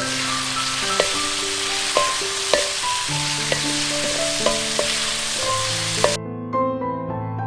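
Food sizzling as it cooks, heard as a steady hiss under gentle piano music; the sizzle cuts off suddenly about six seconds in, leaving only the piano.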